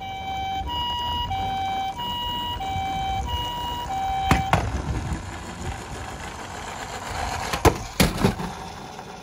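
A toy ambulance's electronic two-tone hi-lo siren, alternating between a low and a higher tone about every 0.6 s, the Japanese ambulance pattern. It cuts off with a click a little past four seconds in, followed by scuffing noise and two sharp knocks near the end.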